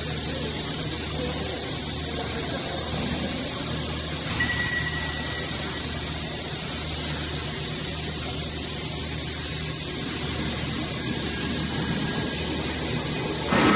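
Steady low machinery hum with an even high hiss over it; a louder, noisier machine sound starts right at the end.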